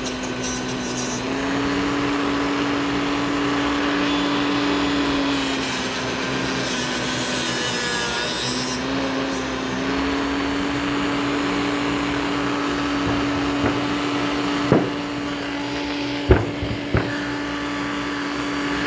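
A power tool's motor runs steadily under load, grinding off protruding screw tips; its pitch sags and recovers partway through. A few sharp knocks come near the end.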